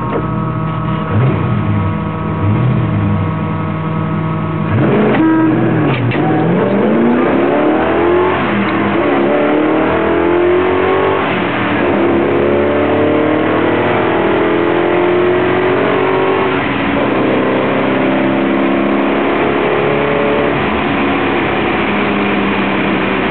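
Holden HQ Monaro GTS V8 heard from inside the cabin on a drag run: it sits on the start line at a steady note, then about five seconds in launches and revs up hard, the pitch climbing and falling back at each gear change, with the rear tyres short of traction in first and second. In the last several seconds the engine holds a steadier note as the driver backs off.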